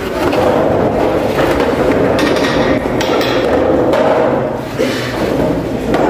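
School desks and chairs being dragged and scraped across a floor: a continuous scraping clatter with a few knocks in the middle.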